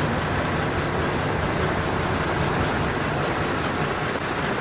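Diesel engine of a decorated Japanese art truck (dekotora) with a manifold-split exhaust, idling with a steady, even low rumble.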